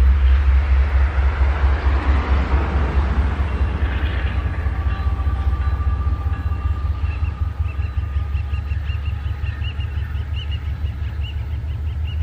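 Diesel-electric freight-style locomotive approaching, its engine a steady low rumble, with a wash of rolling rail noise in the first few seconds. A high chirp repeating about twice a second joins in the second half.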